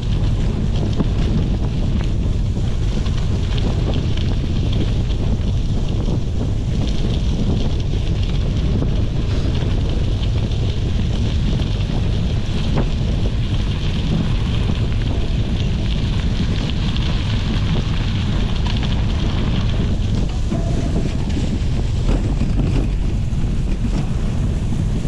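Steady wind buffeting the microphone of a GoPro carried on a moving gravel bike, a loud low rumble, with tyre noise and faint scattered ticks from the bike underneath.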